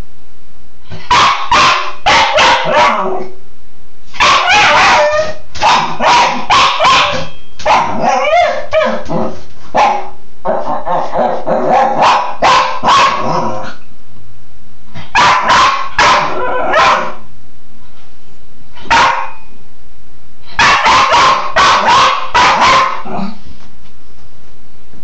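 Cairn terrier barking in rapid bursts of several sharp barks at a time, with short pauses between the bursts.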